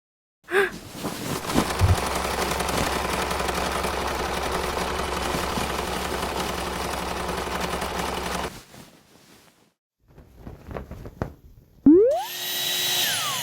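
Vacuum cleaner motor running steadily with a low hum for about seven seconds, then cutting off suddenly. A few clicks follow, and near the end a tone sweeps up and holds steady.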